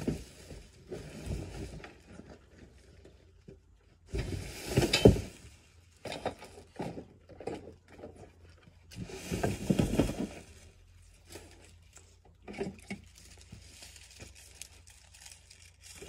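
Plastic wrapping rustling and crinkling, with knocks and rattles, as a lawn mower is lifted out of its cardboard box and set down. There are two louder bursts of handling noise about four and nine seconds in, and scattered clicks between them.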